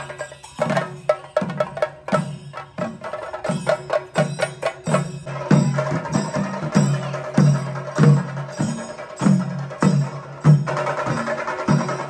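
Chenda drums beaten with sticks: sharp, fast strikes at first, settling about halfway in into a steady beat of deep strokes, a little under two a second.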